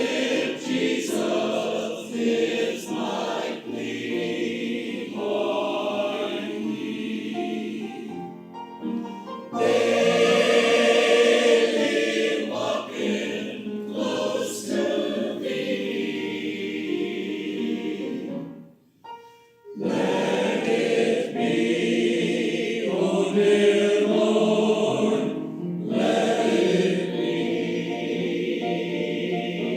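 A choir singing, in phrases, with a brief break about two-thirds of the way through before the singing resumes.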